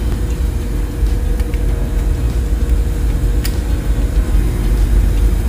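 Steady low machinery hum with a faint steady tone, the background of a ship's engines and ventilation. A short click about three and a half seconds in as the pressure gauge is fitted to the SCBA bottle valve.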